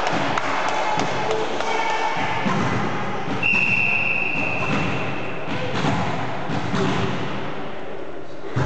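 Volleyball hall ambience with scattered thuds on the wooden floor. A referee's whistle sounds once as a steady high blast of about two seconds near the middle.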